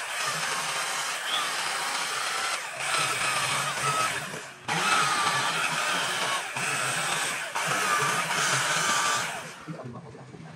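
Handheld power carving tool grinding into rosewood, its whine dipping and rising in pitch as it bites, in runs of a second or two with short breaks; it dies away near the end.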